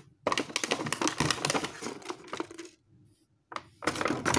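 Hands handling an opened headphone box and its packaging: a dense run of small clicks, taps and crinkles for about two and a half seconds, a short pause, then more near the end.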